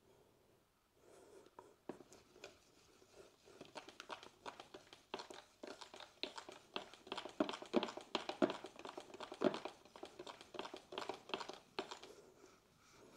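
A wooden stir stick mixing thick white primer in a paint can before use: a quick series of short scrapes and knocks against the can, starting about a second in, busiest in the middle and dying away near the end.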